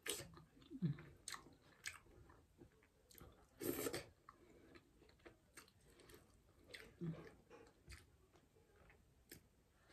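Close-mic'd eating: soft wet chewing and lip smacks of a mouthful of finger-millet dhido with fish curry, eaten by hand. A louder smack comes a little under four seconds in, as fingers go to the mouth.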